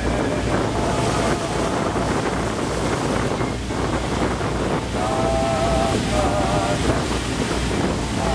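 Wind buffeting the microphone over the steady rush of white water churned up along the side of a moving excursion boat, with a low rumble underneath.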